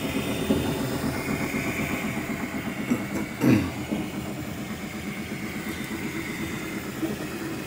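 Anet A8 3D printer running, with its stepper motors buzzing in short, quickly changing tones over a steady high whine. There is one louder sweep about three and a half seconds in.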